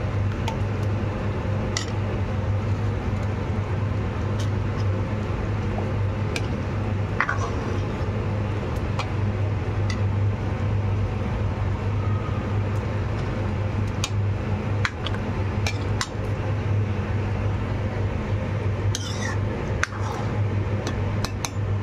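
A metal spoon knocking and clinking against a cooking pan, a dozen or so scattered clicks with several close together near the end, as kofte are settled into simmering gravy. Under it runs a steady low hum.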